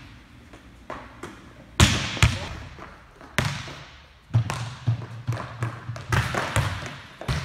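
Volleyballs being hit and bouncing off a hard gym floor: a few sharp slaps and thuds, the loudest about 2 and 3.5 seconds in and more around 4.5 and 6 seconds, each echoing in a large hall.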